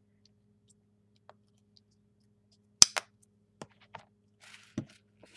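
Small plastic craft-paint bottle being handled and capped: two sharp plastic clicks close together nearly three seconds in, then a few softer clicks and taps.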